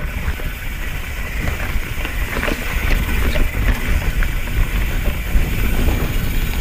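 Mountain bike ridden fast down dirt singletrack: knobby tyres rumbling over the trail and wind buffeting the camera's microphone, with a few short clatters from the bike.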